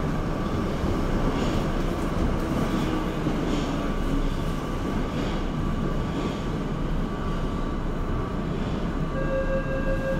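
Tokyo Metro Marunouchi Line 02 series subway train running: a steady rumble of wheels on rail, with occasional faint rail-joint knocks. Near the end a steady whine sets in.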